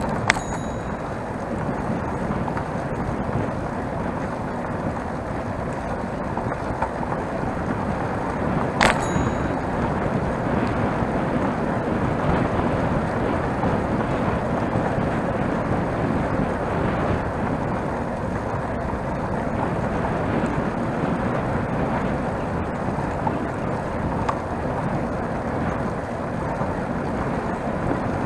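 Steady wind and tyre noise of a single-speed bicycle riding on asphalt, heard through a handlebar-mounted action camera. A sharp metallic clink with a short ring comes about nine seconds in, and a lighter one at the very start.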